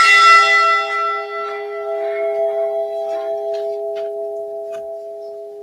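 The Edmund Fitzgerald's bronze ship's bell struck once and left to ring: bright high tones die away within a few seconds while the lower hum fades slowly. It is one toll for a lost crewman whose name has just been read.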